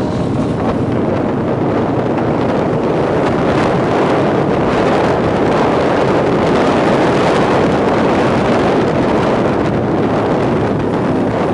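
Steady rush of wind over the microphone of a camera riding on a motorcycle at highway speed, with no distinct engine note standing out.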